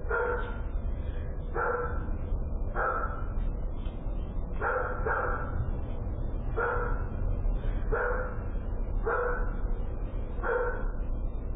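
A dog barking nine times, roughly one bark every second or so, over a steady low hum.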